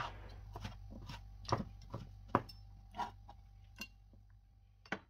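A series of about nine light, irregular clicks and taps, the loudest about one and a half and two and a half seconds in, over a faint steady low hum.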